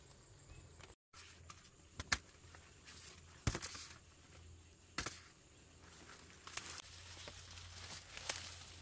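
A few sharp snaps and cracks, about four spread over several seconds, among quieter tearing and crumpling noises.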